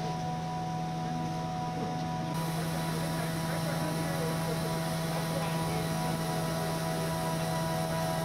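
A steady low hum with a few fixed higher tones, and faint voices murmuring beneath it.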